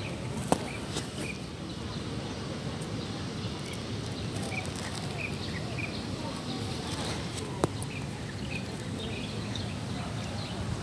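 Steady background hum of a busy park with small birds chirping now and then, and two sharp clicks, one just after the start and one about three-quarters of the way through.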